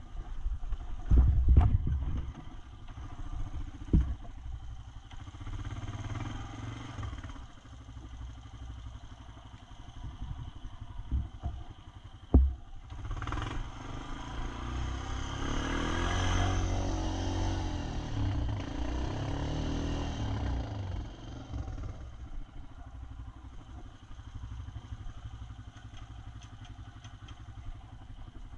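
ATV engine running at trail speed, revving harder for several seconds in the middle and then easing off. There are sharp knocks and clatter as the quad bounces over rough ground.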